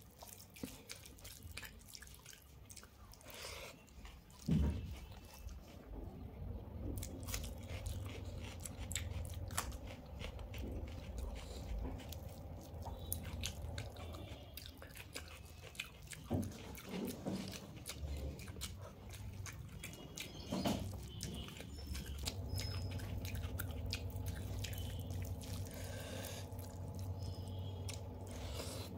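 Close-up eating sounds of rice and omelette eaten by hand from a brass plate: fingers squelching and mixing the food, with wet chewing and biting and many small clicks and smacks. There is one louder knock about four and a half seconds in.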